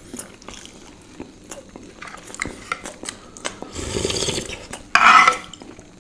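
Eating noises at a plate of sweets: small clicks and taps of cutlery on dishes, turning to a louder stretch of rubbing and handling noise from about four seconds in, with a brief loud burst about five seconds in.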